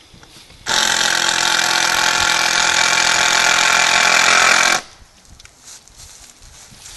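Cordless power drill driving a screw into the wooden door frame, running steadily for about four seconds, starting and stopping abruptly.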